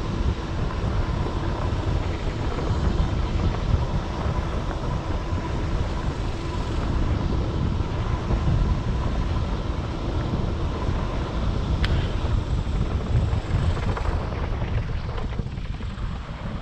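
Steady low wind rumble on the microphone of a camera moving along a dirt trail.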